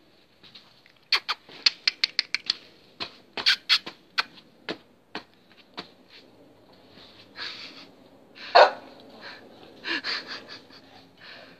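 Two Chow Chows play-fighting in snow: a quick run of sharp snaps and clicks in the first few seconds, then scuffling, with one louder short sound about eight and a half seconds in.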